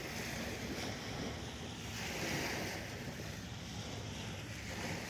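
Wind buffeting the microphone: a choppy low rumble with a rushing hiss that swells and fades every couple of seconds.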